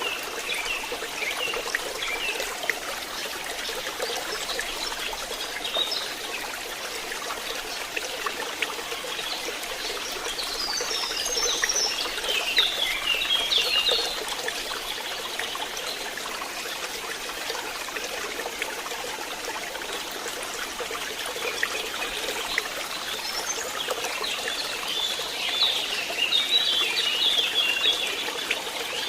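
Stream water running and trickling steadily, with small birds chirping and twittering over it in short flurries: a few calls at the start, a busier flurry about ten to fourteen seconds in, and again through the last few seconds.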